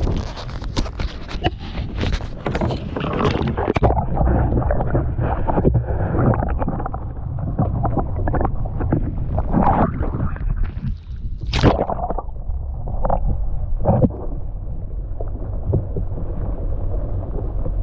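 Splashing and handling knocks at the water's surface for the first few seconds. Then muffled underwater sound: a steady low rumble with gurgling and scattered knocks, and one brief sharper burst about eleven seconds in.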